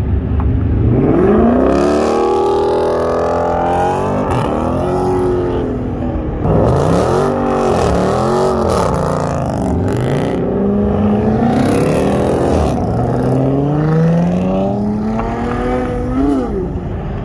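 Car engine revved hard again and again, the revs climbing and dropping in quick sweeps, with one long climb in pitch near the end.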